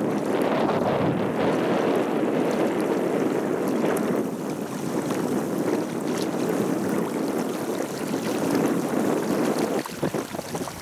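Steady rush of a swollen river's flowing water, mixed with wind on the microphone; it drops off briefly near the end.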